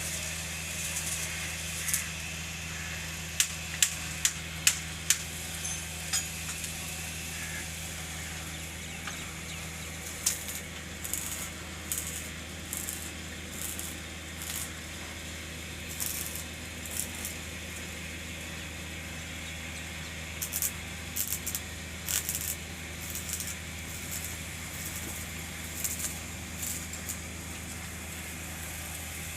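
Steel window-grill fabrication: sharp metallic clinks and taps of iron pieces, with short bursts of arc-welding sizzle from quick tack welds, over a steady low electrical hum.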